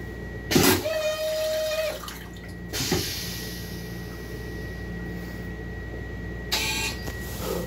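Metro-North M7 railcar's stainless-steel toilet flushing: a loud short rush about half a second in, then a whistling tone for about a second and a knock near three seconds. Another short rushing burst comes near the end, over a steady low hum and a thin high-pitched tone.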